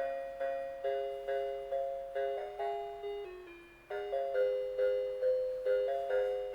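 Electronic chime melody of a Christmas tune from a 1996 Christmas Fantasy musical skating-pond figurine: bell-like notes struck a few times a second, each dying away, mostly in two- or three-note chords.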